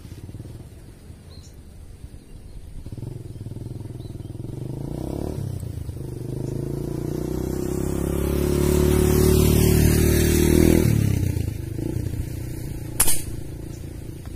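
A vehicle engine passing close by, growing louder to a peak about ten seconds in, then fading quickly. About thirteen seconds in comes a single sharp crack of a PCP air rifle firing a fishing dart.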